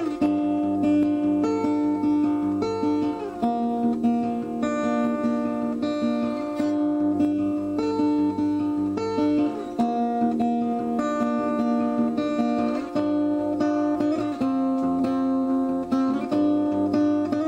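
Background music: an acoustic guitar strumming chords, with the chord pattern changing every second or two and repeating.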